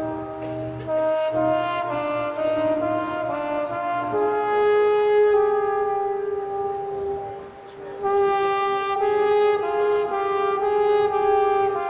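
Brass band playing a slow tune in held chords, with a brief break past the middle before the notes resume.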